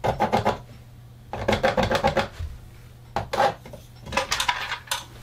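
Pencil tracing around a plastic electrical box held against drywall: scratchy strokes of the lead along the wall and the box's edge, in about four short bursts with pauses between.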